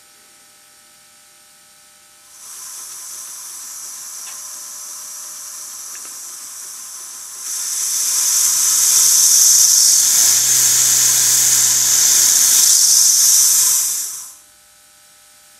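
Four-cylinder oscillating model marine engine running on compressed air: a steady hiss of exhaust air comes in about two seconds in. It gets much louder about halfway as the valve is opened further, with a low steady hum under the loudest stretch, then cuts off shortly before the end as the air is shut off.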